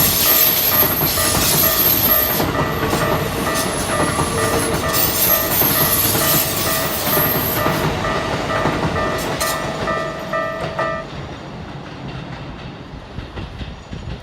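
A Keikyu electric train running past over a level crossing, its wheels rattling on the rails, while the crossing's warning bell rings in a steady repeating pattern. The bell stops about eleven seconds in, and the train noise fades away.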